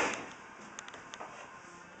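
Paper towel rubbed across an aquarium's glass bottom: one short, loud scrubbing rustle at the start, then a few faint clicks.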